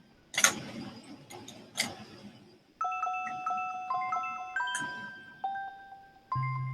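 A few sharp clicks and scrapes, then about three seconds in a melody of clear, sustained notes that step from pitch to pitch.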